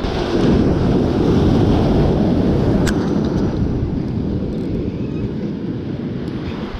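Wind buffeting the microphone over sea surf breaking on rocky boulders: a loud, steady low rush, strongest in the first couple of seconds and easing a little after.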